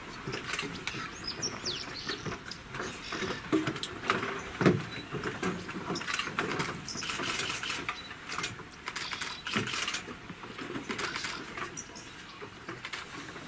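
African elephant feeding in dry bush: irregular rustling, crackling and snapping of grass and twigs, with two louder knocks a little before the middle. A bird chirps a few times near the start.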